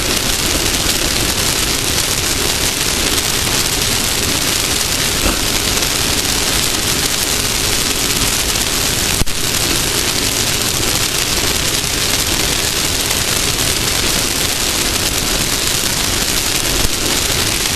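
Off-road race car running at speed, a steady loud rushing noise of wind, dirt and engine with no distinct engine note, and one sharp knock about nine seconds in.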